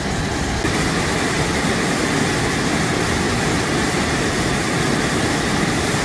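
Waterfall pouring down over rocks at close range: a steady rush of white water.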